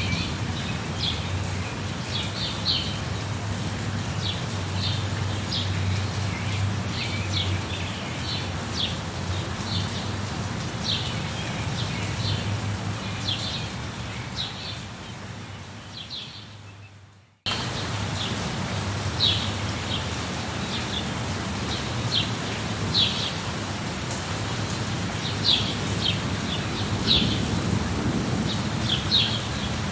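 Steady rain with a low, continuous thunder rumble, and small birds chirping in short, frequent calls over it. About halfway through, the whole ambience fades down and then cuts abruptly back in, as at a loop or edit point.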